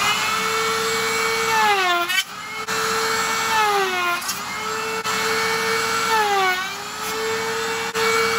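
Table-mounted router spinning a 3/4 inch straight bit, cutting a tenon in wood with repeated passes. Its steady whine sags in pitch three times as the bit bites into the board under load, and comes back up between passes.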